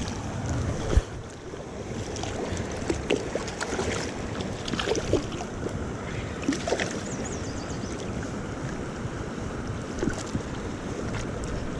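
Creek water running and splashing close by, with scattered small splashes and gurgles and some wind on the microphone. About seven seconds in a bird gives a quick falling series of high notes.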